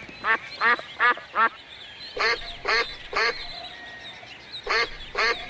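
Duck quacking in short runs: four quacks, a pause, three more, then two near the end.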